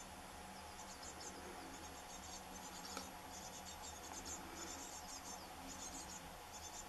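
Chirping insects stridulating: short, rapid buzzy pulse-trains, high-pitched, repeating every half second or so throughout.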